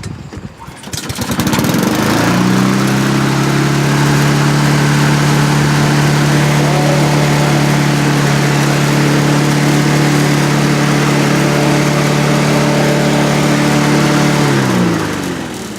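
Honda HRR216 lawn mower's single-cylinder four-stroke engine pull-started from cold, catching on the first pull and rising to a steady run. Near the end the engine winds down and stops.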